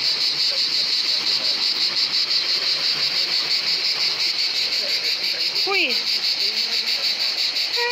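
Loud, steady chorus of cicadas, a high buzz with a fast, even pulse. A child's short, falling vocal sound cuts across it a little before the end.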